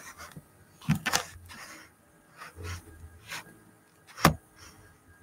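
Handling noise as a camera is repositioned: a pair of knocks about a second in, a few softer scrapes and bumps, then one sharp knock near the end, the loudest.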